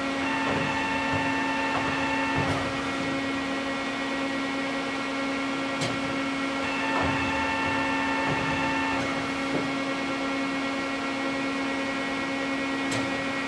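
Mori Seiki TL-40A CNC lathe running under power, a steady hum. A higher whine comes in for about two seconds near the start and again about seven seconds in, and a few sharp clicks fall between them.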